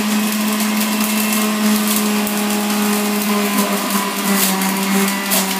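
Dash Premium 800-watt juicer running at speed: its motor makes a steady hum and whir.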